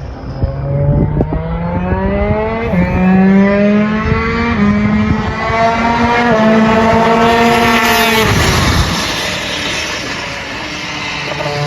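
250cc two-stroke superkart engine at full throttle, its pitch climbing for about eight seconds with a few brief steps, then dropping off sharply as the throttle is shut; it picks up again at a lower, steadier pitch near the end.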